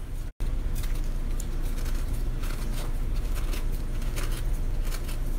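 Chef's knife cutting the peel off an orange by hand: faint scattered clicks and scrapes over a steady low rumble, with a brief dropout in the sound about a third of a second in.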